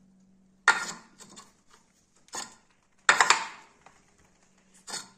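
Heavy steel die blocks, made from truck leaf spring, clanking against the steel die of a homemade spring hammer as they are set down and shifted by hand. Several sharp metal knocks come one by one, with a quick cluster of them about three seconds in.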